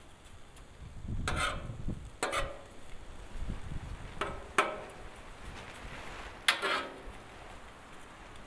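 Metal spatula scraping and clinking on the steel top of a 28-inch Blackstone griddle while spreading shredded frozen hash browns. About five strokes, each with a short metallic ring.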